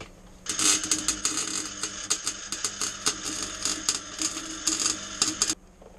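MIG welder laying a weld bead: a steady, dense crackle of irregular sharp ticks that starts about half a second in and cuts off suddenly near the end as the trigger is released.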